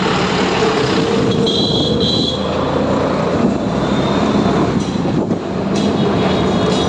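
Auto-rickshaw engine running while it drives along a rough street, with steady road and traffic noise. A brief high squeak sounds about a second and a half in.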